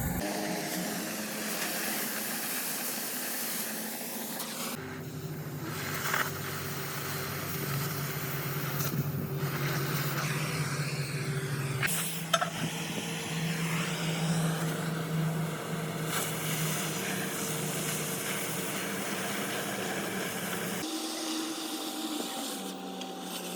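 Steady hiss with a low machine hum; the hum's pitch changes abruptly a few times, with a couple of sharp clicks about halfway through.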